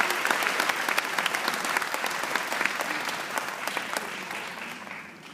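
Audience applauding, many hands clapping at once, the applause thinning out and dying away near the end.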